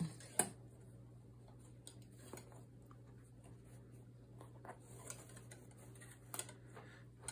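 Faint clicks and rustling as cotton potholder loops are handled and a long metal weaving needle is drawn through the warp of a potholder loom. The sharpest click comes just after the start, with a couple more about six seconds in.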